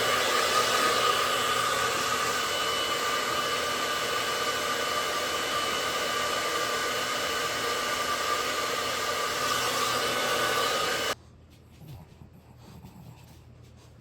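Hair dryer blowing steadily with a faint motor whine, switched off suddenly about eleven seconds in.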